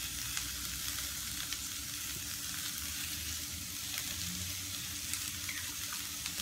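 Green beans, carrots and dried shrimp sizzling as they stir-fry in a stainless steel pan: a steady hiss with small crackles.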